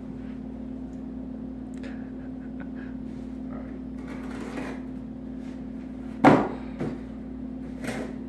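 Steady low hum, with faint clicks and a few knocks; the loudest, a sharp knock, comes about six seconds in, with smaller ones just after and near the end.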